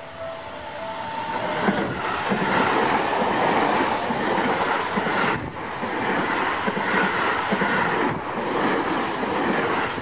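Seibu 40000-series electric commuter train passing close by, with wheels clattering on the rails over a loud rushing rumble. A level-crossing warning bell rings through the first second, then fades under the train noise.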